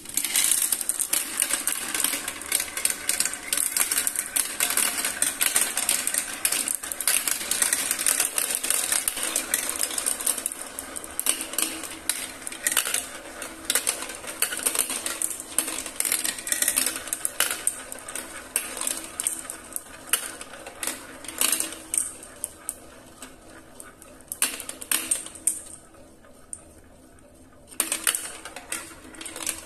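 Many marbles clattering and rolling down a block marble run: a dense rattle of clicks that starts abruptly and thins out after about ten seconds into scattered clicks. It stops briefly near the end, then comes back in one last short burst.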